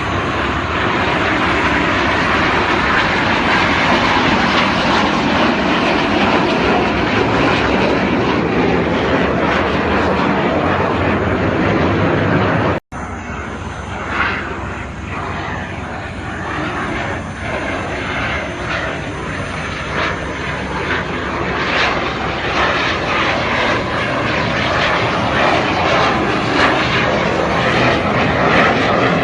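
Fixed-wing aircraft flying at an air show: loud, steady jet engine noise with no clear tones. About 13 seconds in there is an abrupt cut to a second, somewhat quieter stretch of aircraft noise.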